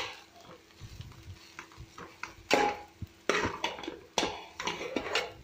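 Steel spatula stirring and tossing rice noodles in a metal pot, scraping against the pot. It is quiet at first, then a few sharp scrapes come about half a second to a second apart in the second half.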